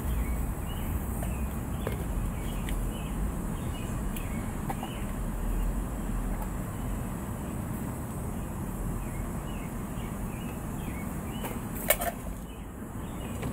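Outdoor background sound: a steady low rumble with faint bird chirps repeating throughout, and one sharp click near the end.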